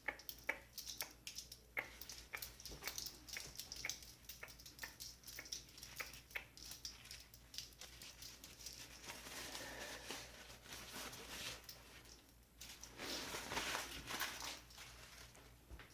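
Close-miked tapping and clicking, with rustling and crinkling swells in the second half.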